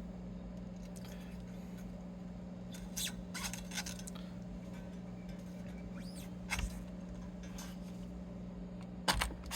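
Faint scattered clicks and scrapes of guitar strings and tuner hardware being handled while a Stratocaster is restrung, over a steady low hum.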